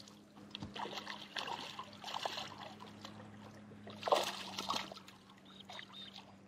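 A hooked smallmouth bass splashing and thrashing at the lake surface beside the boat, in short bursts of water noise, the biggest splash about four seconds in. A steady low hum runs underneath.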